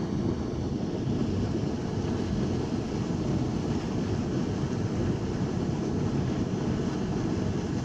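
Water rushing steadily through a lake spillway, a constant low rush.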